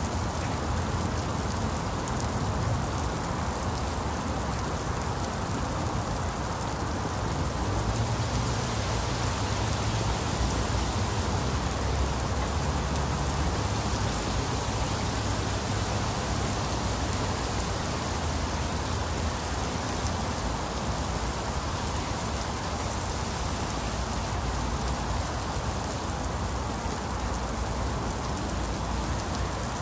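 Very heavy rain falling steadily on a paved lane and foliage, an even hiss that turns brighter a few seconds in and eases back near the end.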